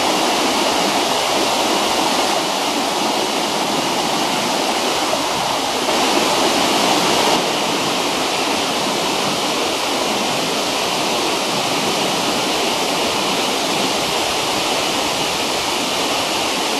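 Mikaeri Falls, a large waterfall, pouring: a steady, loud rush of falling water, a little louder for a moment about six seconds in.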